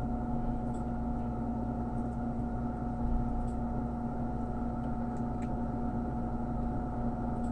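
Steady machine hum with a constant pitch, and a few faint small clicks.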